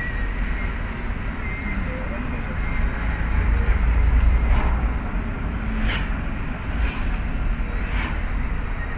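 Steady low rumble of a car driving, engine and road noise heard from inside the cabin, swelling for a moment around the middle, with a few light clicks.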